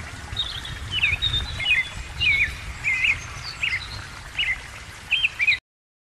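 Small songbirds chirping in a quick run of short, high notes, two or three a second, over a low background rumble. The sound cuts off suddenly near the end.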